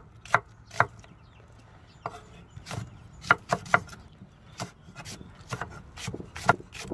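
Chef's knife slicing onion, red chili and green onion on a wooden cutting board: a dozen or so sharp knocks of the blade on the board at an uneven pace, with a pause of about a second near the start.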